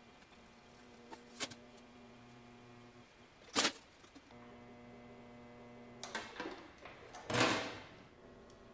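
Aluminum sheet being worked through a hand-cranked bead roller, with a few sharp clicks and knocks from the sheet and rollers over a low steady hum. The loudest knock comes about three and a half seconds in, and a brief rushing scrape of the sheet comes near the end.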